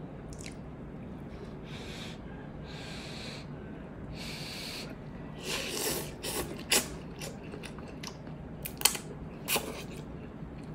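Close-up noodle slurping: a series of hissing slurps about a second apart as instant noodles are sucked up from chopsticks, then chewing with several sharp clicks toward the end.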